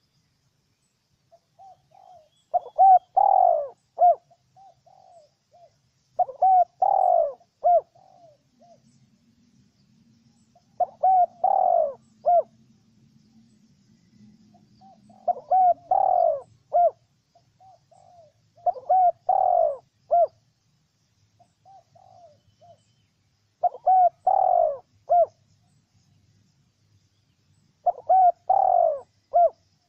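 Spotted dove cooing: seven short phrases about every four seconds, each opening with a few soft notes and ending in louder low coos.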